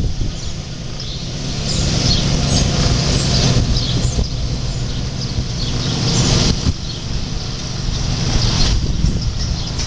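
A vehicle engine running steadily, with birds chirping over it.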